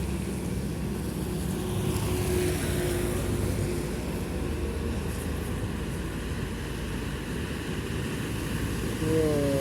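Heavy road traffic: the diesel engines of large trucks and buses rumbling steadily as they pass, with a faint hiss of tyres above it.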